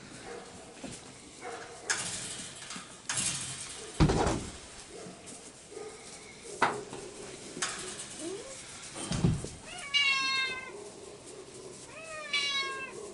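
Puppy whining twice near the end, two short high cries about two seconds apart that drop slightly in pitch. Scattered knocks and thumps come before them, the loudest about four seconds in.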